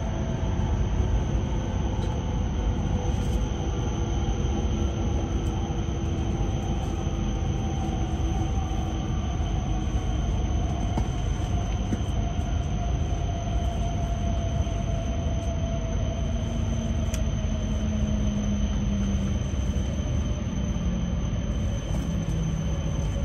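E6 series Shinkansen's Hitachi IGBT VVVF inverter and traction motors whining over a steady rumble of wheels on rail. Several tones slowly fall in pitch as the train slows, and a lower tone joins about two-thirds of the way through and steps down.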